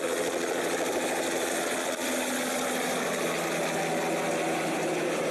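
An engine running steadily: a constant drone with a hiss over it, shifting slightly about two seconds in.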